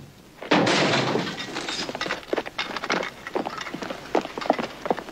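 A sudden crash about half a second in, then an irregular clatter of many sharp knocks, like things breaking and falling.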